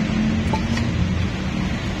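Steady low rumble with a hum, like background machinery. A faint click of metal parts being handled comes about three-quarters of a second in.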